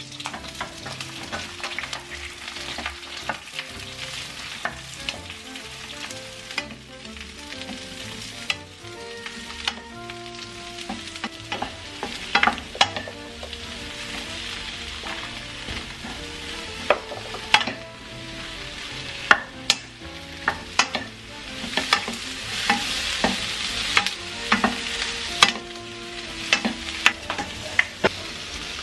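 Eggplant and onion stir-frying in hot oil in a nonstick wok over high heat. The oil sizzles steadily under many sharp clicks and scrapes of a spatula against the wok, which come more often in the second half.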